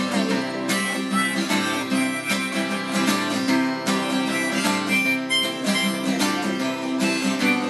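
Acoustic guitar strummed with a harmonica carrying the melody, an instrumental break between sung verses of a country song.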